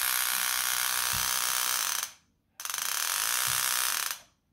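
Solenoid graver handpiece, a 12 V solenoid driven at 19 V, hammering rapidly at its top frequency as a steady buzz. It runs in two bursts, about two seconds and then a second and a half, cutting off sharply between them as the pedal is let off.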